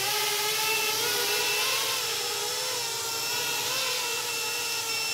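FPV quadcopter's brushless motors and propellers whining at a fairly steady throttle, the pitch wavering only slightly. Above them a high electronic beep keeps coming and going: the low-voltage alarm, the lithium-ion pack being nearly flat and sagging toward 2.5 volts per cell.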